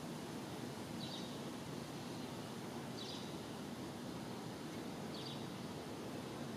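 Steady low outdoor background noise, with a bird giving a short high chirp three times, about two seconds apart.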